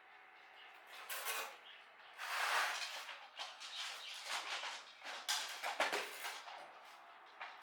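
Irregular scraping and rubbing with a few sharp clicks, the sound of parts being handled and worked on.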